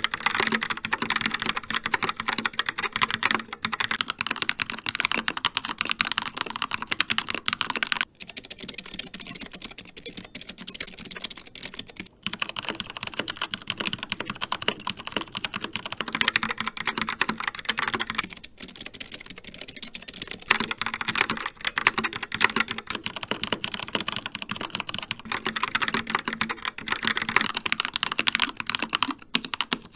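Continuous fast typing on a mechanical keyboard, a dense clatter of key clicks. The typing breaks off briefly about 8 and 12 seconds in, and the sound of the keys is duller between those breaks and again around 19 seconds in, as if a different keyboard were being typed on.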